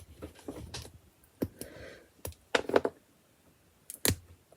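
LEGO plastic pieces being handled, with a handful of separate sharp clicks and taps, the loudest a quick cluster a bit past halfway and a single click near the end.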